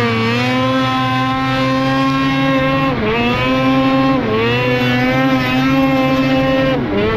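Snowmobile engine running at high, steady revs at speed, with brief dips in revs about three seconds in and again about a second later, and falling off near the end.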